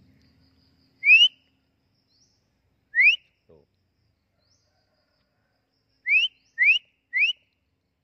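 A person whistling short, quickly rising notes up at a nesting drongo: one about a second in, one near three seconds, then three in quick succession near the end.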